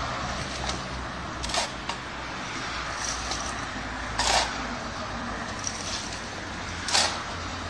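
A shovel digging and tossing soil into a wheelbarrow, three short scraping strokes a few seconds apart, over a steady low rumble of road traffic.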